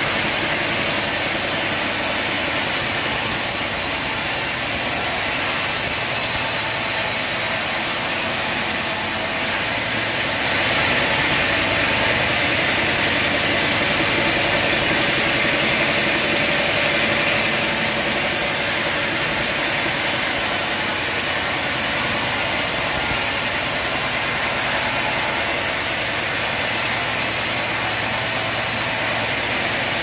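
Large vertical band sawmill running steadily and cutting through a log: a dense, unbroken noise that grows a little louder about a third of the way in.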